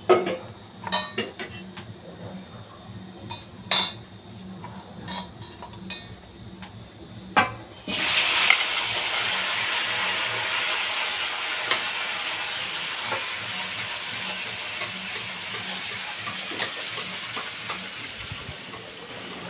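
Metal tableware (a steel bowl, a silver glass and a spoon) clinking and knocking against a plate and a marble tabletop as they are set out. About eight seconds in, a loud, steady hiss starts suddenly and slowly fades.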